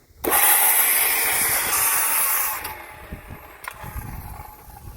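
Circular saw cutting through a wooden purlin board, a loud, dense cut lasting about two and a half seconds that stops fairly sharply, followed by quieter handling sounds.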